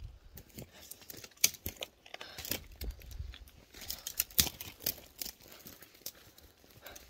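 Phone handling noise: the microphone rubbing and knocking against hair and clothing, heard as irregular crinkling with a string of sharp clicks and taps and low rumbling underneath.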